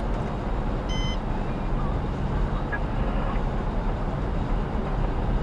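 A fire department vehicle running at highway speed, heard from inside: steady engine and tyre-on-road rumble. A short electronic beep sounds once, about a second in.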